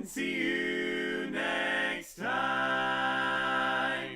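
Background music of long held chords, changing to a new chord about a second and a half in and again about two seconds in.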